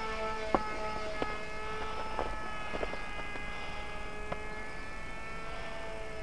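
Brushless electric motor and cut-down, higher-pitch propeller of an RC plane buzzing steadily in flight, its pitch drifting slowly down and back up. A few sharp clicks are heard during it.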